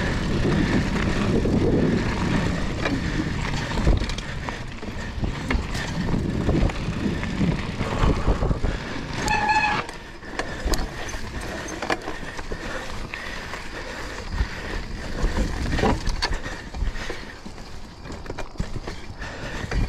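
Mountain bike being ridden over a sandy, root-covered trail: steady tyre and wind noise with frequent knocks and rattles as the bike jolts over bumps, louder in the first few seconds. A short high-pitched tone sounds about nine seconds in.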